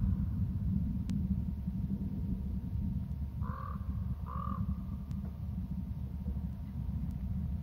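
Two short, harsh caws from a corvid, about a second apart near the middle, over a steady low rumble.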